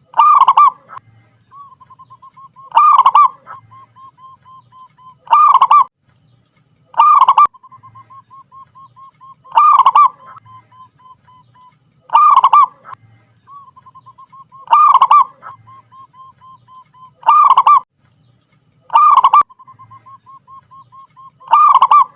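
Zebra dove (perkutut) singing over and over: ten loud cooing phrases, one every two to three seconds, with runs of soft, quick notes at the same pitch between them.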